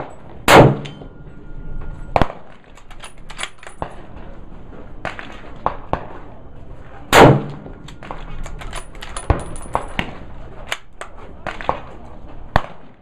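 Scoped bolt-action rifle fired twice, about six and a half seconds apart, each shot a loud crack with a short echo. Smaller cracks and clicks come in between.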